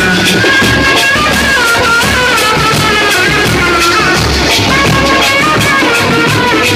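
Indian street brass band playing a lively folk tune: a wavering melody line over a steady beat of drum and percussion strokes, about three a second.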